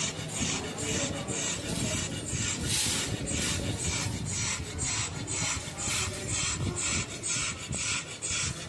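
A dog breathing fast and labored, with a rasping, rattling sound about three times a second. This is the noisy breathing of pulmonary edema, fluid in the lungs.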